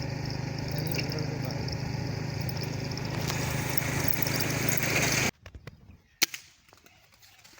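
A steady engine-like running noise with a low hum cuts off abruptly about five seconds in. About a second later comes a single sharp crack of an air rifle shot.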